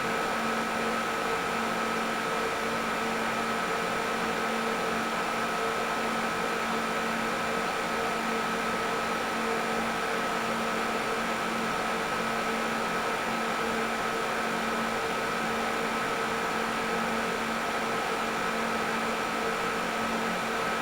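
Computer server room ambience: a steady machine whir and hiss with several constant hum tones, never changing in level.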